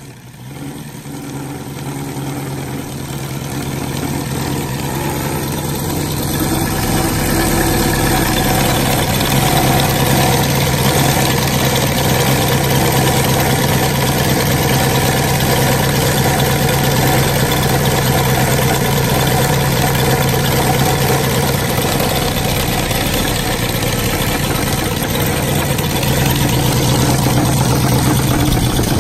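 UMS 260cc seven-cylinder radial four-stroke petrol engine turning a 34x14 propeller. It grows louder over the first several seconds, then runs steady and loud at high revs, near its peak RPM for this prop.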